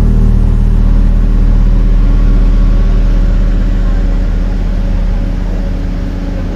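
A motor vehicle's engine running steadily with a low hum, easing off slightly near the end.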